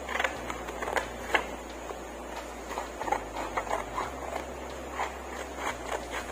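Scissors cutting a sheet of green paper, with the paper rustling as it is held and moved: an irregular run of short, crisp snips and crinkles over a faint low hum.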